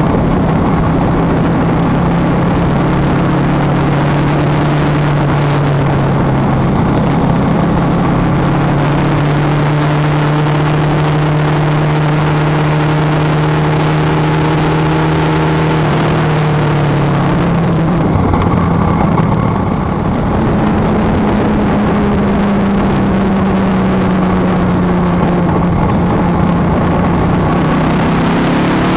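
Kawasaki ER-5's parallel-twin engine running at road speed under steady throttle, mixed with wind rushing over the bike-mounted microphone. About two-thirds of the way through the engine note drops briefly, then settles again and slowly sinks.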